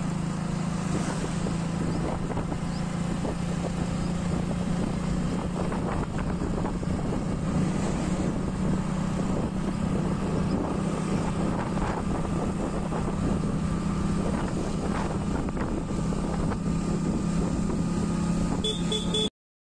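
Wind buffeting a phone microphone in gusty weather, over a steady low hum. The sound cuts off abruptly near the end.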